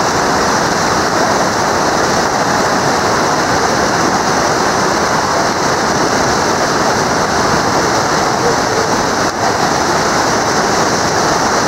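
Whitewater rapids of a canoe slalom course rushing steadily and loudly.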